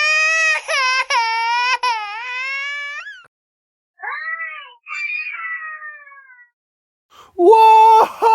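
Cartoon crying sound effect: a high-pitched childlike voice wails in a few sobbing breaks, then gives two shorter falling whimpers, and a louder cry starts near the end.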